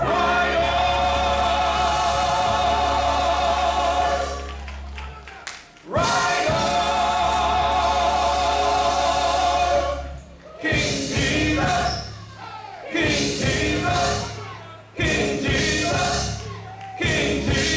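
Gospel choir singing with a low instrumental backing. It holds two long chords, then moves into shorter phrases with brief pauses from about ten seconds in.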